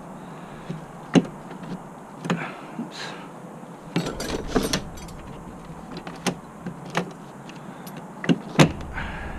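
A series of separate sharp clicks and knocks from handling the RV's entry door and its latch hardware, the loudest two close together near the end.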